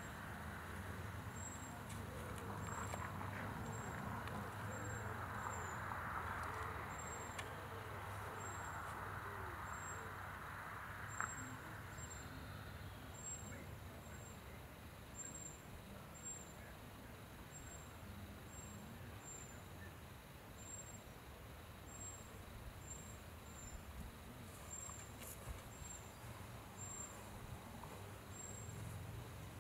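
A faint, short, high chirp repeating about once a second from a small bird or insect, over a low steady rumble, with one brief click about eleven seconds in.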